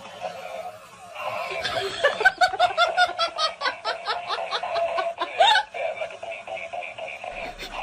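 Laughter: a run of quick, evenly spaced 'ha' pulses, about four to five a second, over roughly three seconds, ending about five and a half seconds in.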